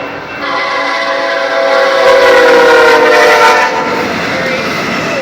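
Air horn of a BNSF ET44C4 locomotive leading a train, sounding one long chord-like blast that grows louder and cuts off after about three seconds, followed by the noise of the train passing.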